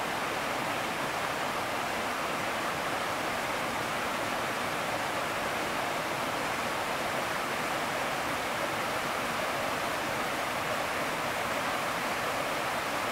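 Creek water rushing and churning over boulders in small rapids: a steady, even rush with no breaks.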